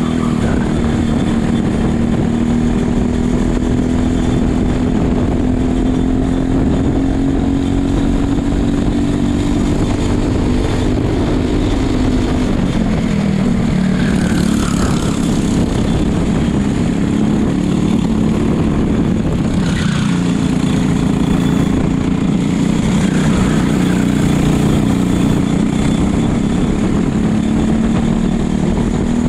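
Racing kart engine running hard under race load. Its pitch drops about twelve seconds in as the kart slows for a corner, then climbs again as it accelerates out. Another kart's engine is briefly heard close by in the middle.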